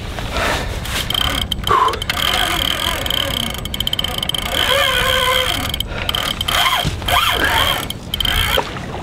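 Drag of a large spinning reel giving line with a steady high whine as a hooked white sturgeon pulls hard, broken briefly a few times, with a quick run of clicks near the middle and a few short exclamations from the angler.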